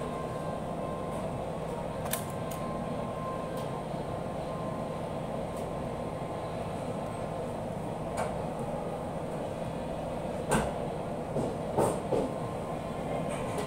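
Steady hum of kitchen machinery, with a few sharp clicks and light knocks, loudest about ten and twelve seconds in, from bamboo skewers and raw beef being handled on a steel tray.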